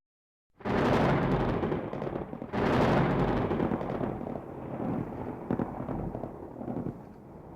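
Thunder crack: a sudden sharp crack about half a second in, a second crack about two and a half seconds in, then a long rumble that slowly fades.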